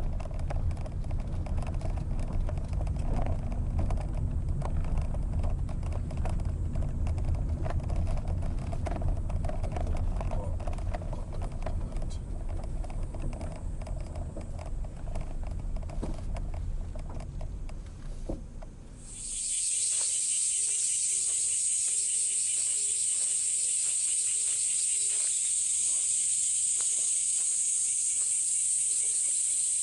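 A low rumble with scattered small clicks, then, about two-thirds of the way through, an abrupt switch to a loud, steady chorus of insects, a high shrill pulsing buzz.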